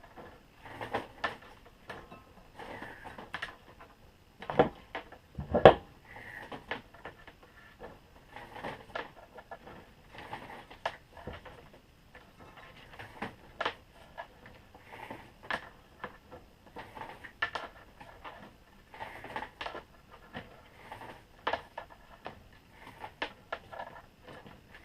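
Extension cord being pulled through a TNT Tooling WSA wire stripper: irregular scraping and rustling as the insulation is slit, with scattered clicks and two louder knocks about four and a half and five and a half seconds in.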